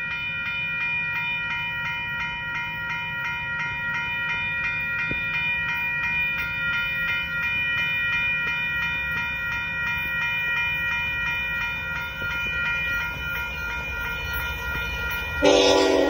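Railroad crossing bell ringing on and on at an even pace while the signal lights flash, over the low rumble of an approaching train. About half a second before the end the Union Pacific locomotive's horn starts to blow, the loudest sound here.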